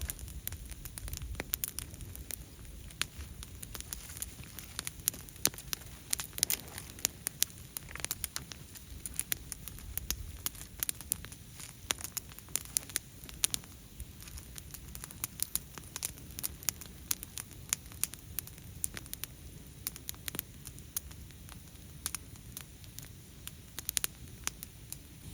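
Bonfire of fallen leaves and dry twigs crackling, a dense scatter of sharp, irregular snaps.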